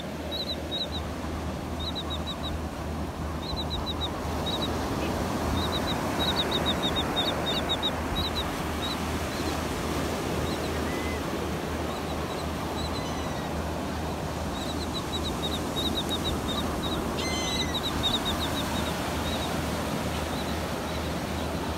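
A flock of seabirds on the beach calling in short, high notes that come in quick clusters, over the steady wash of surf.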